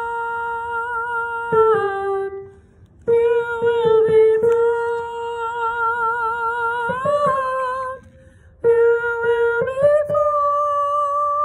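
A woman's soprano voice singing long held wordless notes with vibrato, the soprano 1 line of a three-part women's choir arrangement. She stops twice for a breath, and the pitch steps up in the last few seconds.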